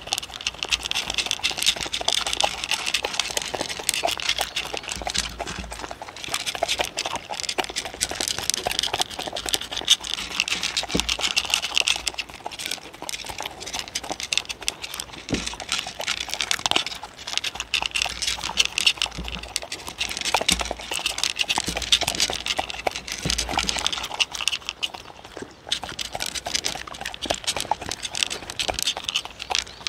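Two dogs eating dry chicken-liver kibble from wooden bowls close to a microphone: a continuous dense run of crunching and chewing, with kibble rattling against the wood as they nose through it.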